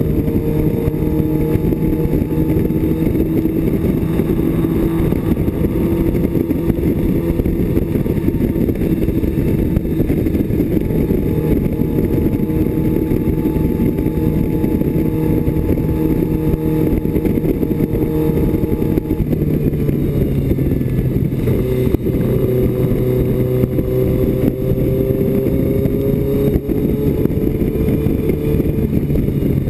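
BMW 2002's four-cylinder race engine, heard from inside the cabin, running hard at steady high revs under way. About two-thirds of the way through, the pitch drops as the revs fall, then climbs slowly again.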